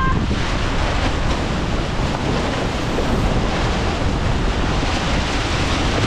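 Steady wind noise on the microphone over water rushing along the hull of a Farr 280 racing yacht sailing at about nine knots.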